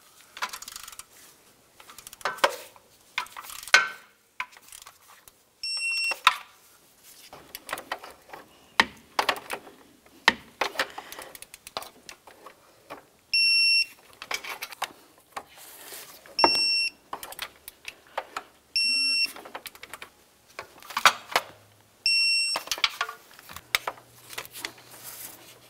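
Digital torque wrench tightening exhaust manifold nuts to 18 foot-pounds, giving five short, high beeps a few seconds apart as each nut reaches torque, with clicking and knocking from the wrench between the beeps.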